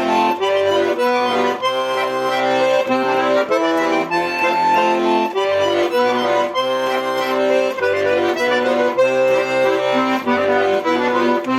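Instrumental break in a song, with no singing: held chords over a bass line that changes about every half second.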